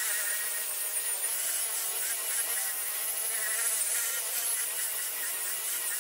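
A 6.5-inch high-speed rotary polisher runs with a foam pad, buffing rubbing compound into an oxidized plastic headlight lens. It gives a steady high whine whose pitch wavers slightly as the pad is pressed and moved across the lens.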